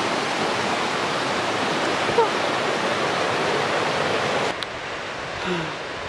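Rushing water of a rocky mountain stream, a steady dense rush, with a short sharp sound about two seconds in. About four and a half seconds in it drops abruptly to a quieter, duller rush.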